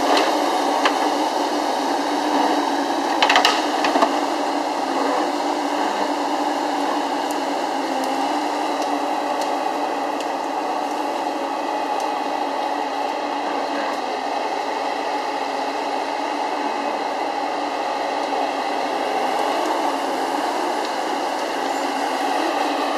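Gremo 1050H forestry harvester running steadily as it works its felling head, engine and hydraulics making a continuous mechanical noise. A few sharp knocks come about three to four seconds in.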